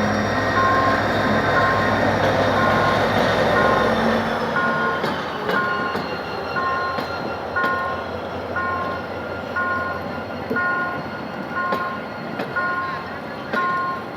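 A GM GT-22CW diesel-electric locomotive arriving with a passenger train. Its engine rumble and a high whine fall in pitch and fade out four to five seconds in. A two-tone electronic warning beep sounds about once a second throughout, with scattered metallic clicks later.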